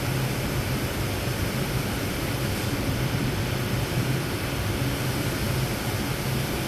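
TIG welding arc on steel tubing: a steady hiss with a low hum underneath, unbroken throughout. The arc is running on bare metal cleaned on a sanding belt, where the puddle stays stable and under control.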